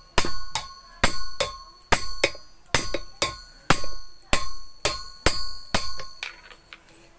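A metal pipe striking the centre of a water pump's impeller again and again, about two blows a second, each with a short metallic ring, to drive the impeller down onto the motor shaft. The blows stop about six seconds in.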